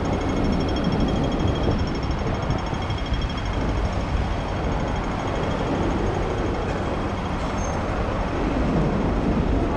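City street traffic noise: a steady rumble of engines from cars, buses and trucks, with a faint high repeating tone during the first few seconds.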